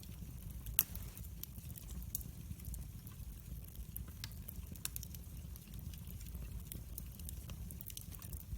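Campfire of burning wood crackling: irregular sharp pops and snaps, the loudest about a second in, over a steady low rumble.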